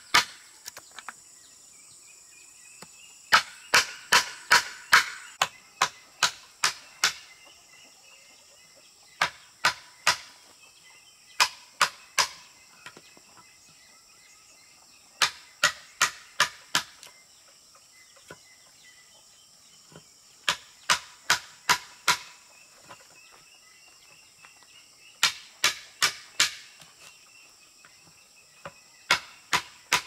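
Hammer blows on wood, in quick runs of three to seven strokes at about three or four a second, with pauses of a few seconds between runs, like nails being driven. A steady high chirr of insects runs underneath.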